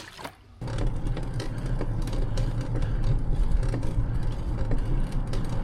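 Steady rumbling road noise with wind on the microphone while riding along a road, starting abruptly about half a second in.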